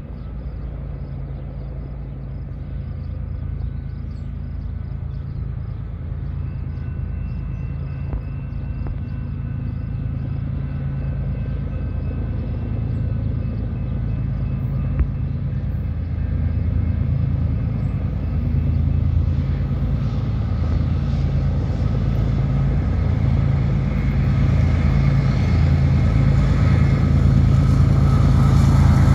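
Diesel locomotives leading a BNSF freight train approaching, their engines running with a low, steady drone that grows gradually louder as they draw near.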